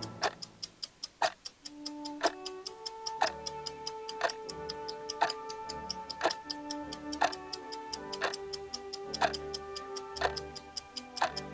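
Clock ticking steadily, with a louder tick once a second and fainter ticks between. Background music with long held notes comes in about a second and a half in.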